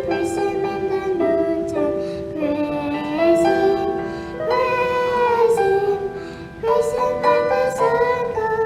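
Children's praise song: a sung melody over a light instrumental backing.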